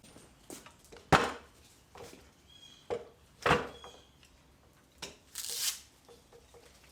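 Knocks and clunks of wood being handled: two sharp knocks, about a second in and again about three and a half seconds in, with lighter taps between and a short scrape near the end.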